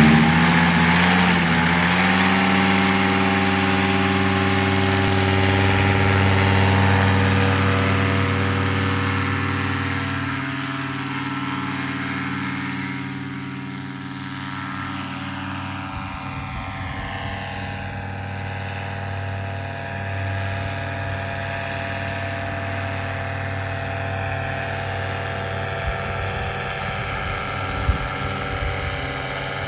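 Paratrike engine and pusher propeller running hard for take-off, a steady droning note that shifts up in pitch in the first couple of seconds. It grows gradually quieter as the trike rolls away and climbs, then holds at a lower level.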